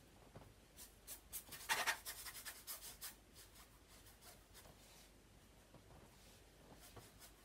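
Paintbrush strokes on stretched canvas: a quick run of short brushing strokes starting about a second in and lasting about two seconds, then only faint scattered strokes.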